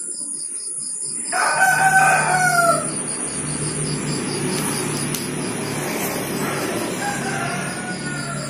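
A rooster crows, a call of about a second and a half that drops in pitch at the end, then a fainter second crow near the end. A steady rushing noise with a low hum comes in about a second in and carries on under both crows.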